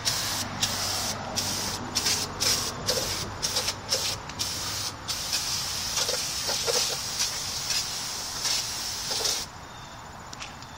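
Aerosol can of brake cleaner spraying onto a new brake rotor. It starts as a quick series of short hissing sprays, then one long spray of about four seconds that cuts off shortly before the end.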